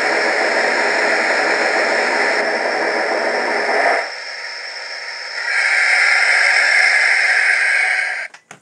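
Steam-hiss shutdown sound effects from the onboard speaker of an MTH O-gauge New York Central Mohawk L3a steam locomotive model, playing its extended shutdown sequence. A loud hiss runs for about four seconds, drops to a quieter hiss, rises again in a higher hiss about five and a half seconds in, and cuts off suddenly near the end as the sound system shuts down.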